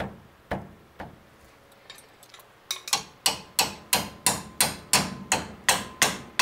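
Hammer striking a steel punch held against a rusted brake caliper on a Mercedes W114, with a metallic ring: a few spaced blows, then from about halfway a faster run of louder blows about three a second. The part is seized and does not come free under the blows.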